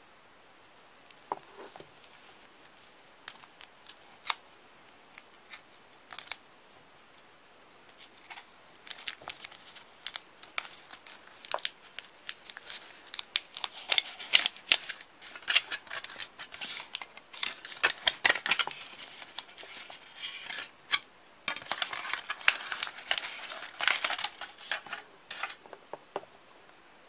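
Thin foil wrapper being peeled and crinkled by hand off a Kinder chocolate Santa figure: scattered sharp crackles and rustles, sparse at first, growing busy about eight seconds in and stopping just before the end.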